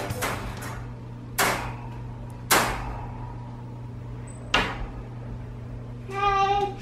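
Wire dog crate rattling as a small child handles its door and bars: three sharp metallic clanks a second or two apart, with lighter ticks between.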